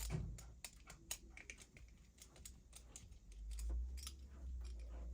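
Scattered light clicks and taps of small metal parts being handled: a furnace igniter bracket and its fittings being worked by hand, with a low rumble joining about three seconds in.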